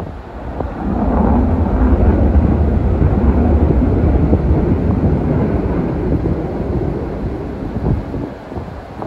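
Fighter jet's engine noise, a low rumble rising about a second in, staying loud for several seconds, then slowly fading as the jet flies past.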